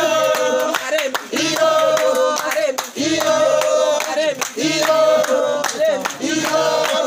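A group of women singing a song together, with hand claps keeping time. The singing comes in phrases of held notes with short breaks every second or two.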